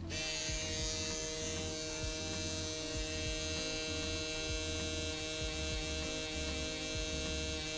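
Permanent-makeup pen machine running with a steady buzzing hum while it shades the eyebrow skin.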